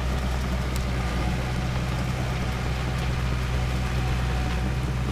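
Kobelco track hoe's diesel engine running steadily with an even low hum, holding one speed with no revving.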